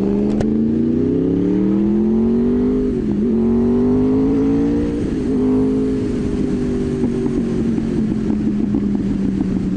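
Sport motorcycle's inline-four engine accelerating, its pitch climbing, with quick gear changes about three and five seconds in, then holding a steady cruise.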